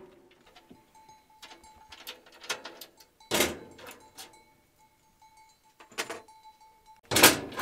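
Clicks and knocks of a metal cabinet door being fitted into place, with a louder clank about three and a half seconds in and the loudest near the end.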